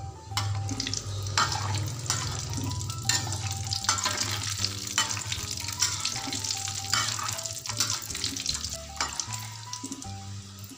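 Food sizzling and crackling as it fries in hot oil in a metal wok, with a slotted metal spatula stirring it and scraping the pan. Soft background music plays underneath.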